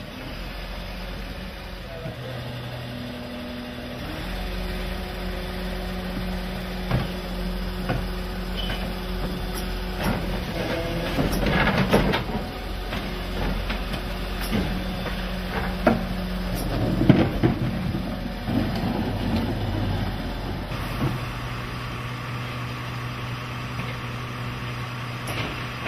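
Garbage truck with a Zoeller Medium XL rear-loader body running, its engine speeding up about four seconds in to drive the lifter and compactor hydraulics and settling back after about sixteen seconds. Bursts of clattering and knocking around twelve and seventeen seconds are bins being tipped into the hopper.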